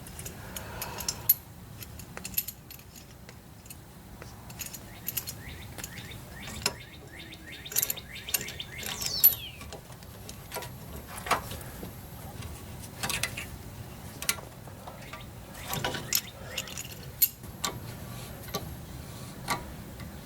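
Scattered light metallic clinks, taps and scrapes of the brake caliper, pads and pad clips being worked into place by hand, with one short sliding scrape about nine seconds in.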